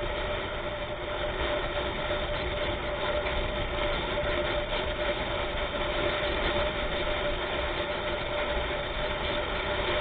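Vehicle engine running steadily under road and wind noise while on the move, with a steady hum and no siren.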